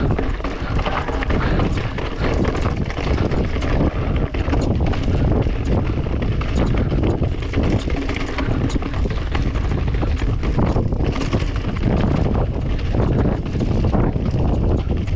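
Wind buffeting the camera microphone over a mountain bike rolling on rough ground, with a constant clatter of small knocks and rattles.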